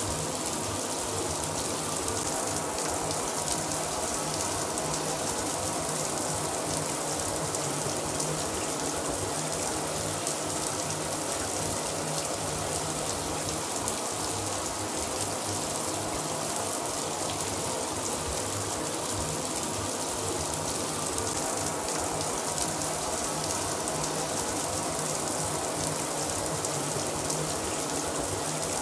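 Shower running steadily, water spraying and pattering onto a surface below.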